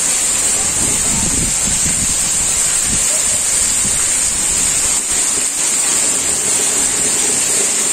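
Very heavy rain pouring down in a steady loud hiss, with strong wind gusting against the microphone as a low rumble in the first few seconds.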